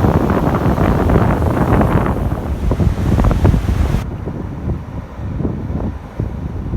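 Strong wind buffeting the microphone with a low rumble over Baltic Sea waves breaking on a sandy shore. The surf hiss drops sharply about four seconds in, leaving mostly the wind rumble.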